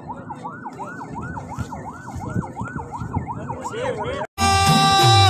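Emergency vehicle siren in a fast yelp, its pitch sweeping up and down about two and a half times a second. A little over four seconds in it cuts off abruptly and music begins.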